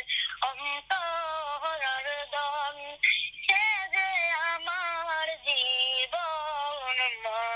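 A high-pitched singing voice, its notes wavering in pitch, sung in phrases with a brief pause about three seconds in.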